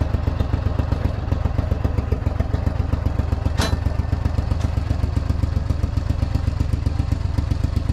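Duck boat's motor running steadily at low speed, with one sharp knock about three and a half seconds in.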